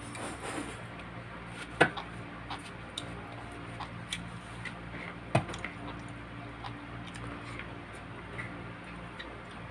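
Close-up mukbang eating sounds: chewing, lip smacks and fingers picking roast chicken and rice off a plate, heard as scattered small wet clicks, with two sharper clicks about 2 and 5.5 seconds in. A steady low hum runs underneath.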